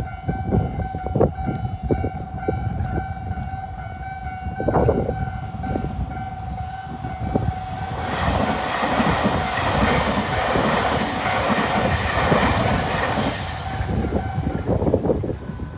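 Electronic level-crossing warning bells ringing steadily, two bells together: the standard Tobu crossing tone and an unusual-sounding one. From about halfway a train runs through the crossing with a rushing rail noise, and the bells stop shortly before the end.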